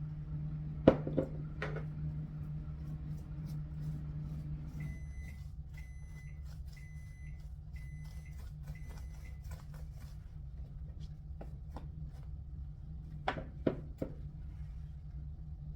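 Microwave oven running with a steady hum that drops away about five seconds in, then five short high beeps signalling the end of its heating cycle. A couple of sharp knocks come near the start, and a few clicks and clatters come near the end.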